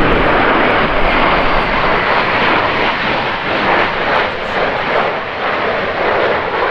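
Loud, steady engine noise of a fixed-wing airplane.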